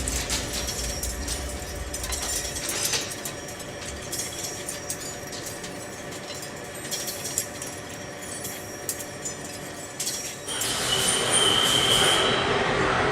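Metalworking machinery running, with irregular sharp clicks and clanks over a steady hum; about ten seconds in it changes to a louder steady hiss with a brief high squeal, like metal being cut.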